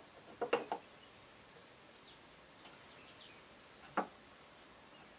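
Quick-grip bar clamps being tightened and handled on a glued-up wooden box: a short cluster of clicks and knocks about half a second in, then a single sharp click about four seconds in, with quiet room tone in between.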